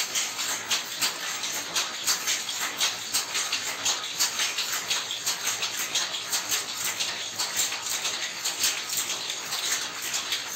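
Saree weaving loom running, its shuttle and beater clacking in a steady rhythm of about two to three knocks a second.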